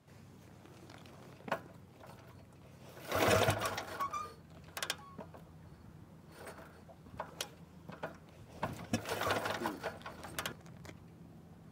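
The JAP engine of a 1928 Norton motorcycle running at idle, a steady low beat with fast, light mechanical clatter. It gets two brief, louder, rougher bursts, one about three seconds in and one near the nine-second mark.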